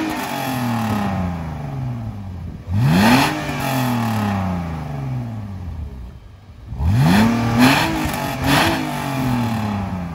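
BMW E46 330Ci's 3.0-litre straight-six being revved through a newly fitted Scorpion back box: sharp blips that climb quickly and fall slowly back to idle. One rev is dying away at the start, another comes about three seconds in, and two more follow close together around seven to nine seconds in.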